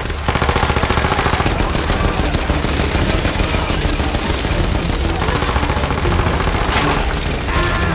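Rapid machine-gun fire in one long, unbroken burst.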